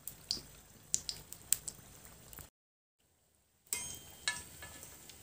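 Kachoris deep-frying in a wok of oil: a faint, even sizzle with scattered light clicks and taps. It drops out completely for about a second in the middle, then resumes.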